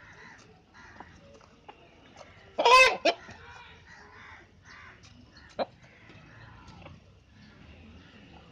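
Chickens clucking softly, with one loud, short pitched call about two and a half seconds in, a brief second call right after it, and another short call a few seconds later.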